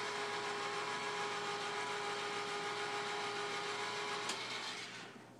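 A small electric motor humming steadily, then switched off with a click a little after four seconds in, the hum dying away quickly after it.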